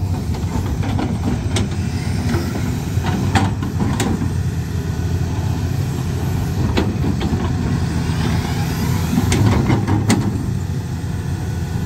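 Hydraulic excavator's diesel engine running steadily, with a few sharp knocks scattered through it.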